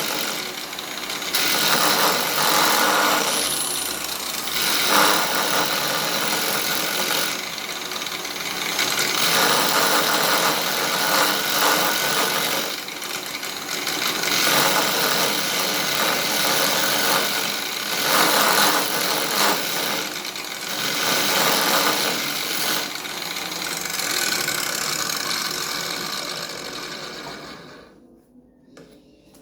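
Milwaukee AGV 15-125 XE angle grinder running at its lowest speed, 2,800 rpm, while a carbide bit is held against the spinning 150 mm sanding disc to true it: a steady motor whine under a harsh scraping noise that rises and falls. The motor winds down and stops near the end.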